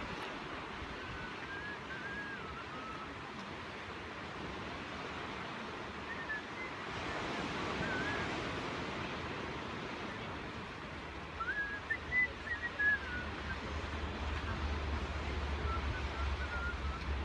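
Steady rush of McWay Falls' falling water mixed with Pacific surf, swelling about seven seconds in. Wind rumbles on the microphone for the last few seconds.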